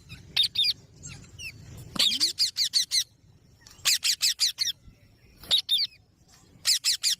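Rose-ringed (Indian ringneck) parakeet calling: about five quick bursts of short, sharp, high notes, each note dropping in pitch, with short pauses between the bursts.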